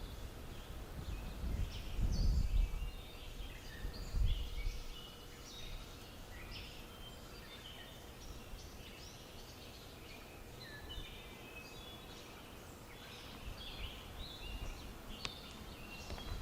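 Songbirds singing in the open, a steady stream of short, quick chirping notes. A low rumble comes and goes in the first few seconds.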